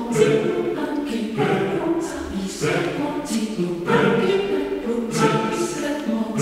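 Choral music: a choir of voices singing together in harmony, with no beat, in phrases that break off and start again about once a second.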